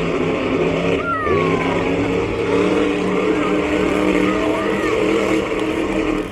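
Monster truck engine running hard under throttle during a freestyle run. Its pitch drops and picks up again about a second in, then holds fairly steady.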